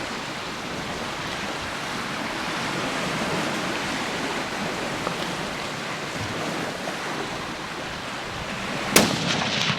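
Steady wind and surf noise, then a single rifle shot near the end, with a short echo after it. It is the shot that drops a black bear.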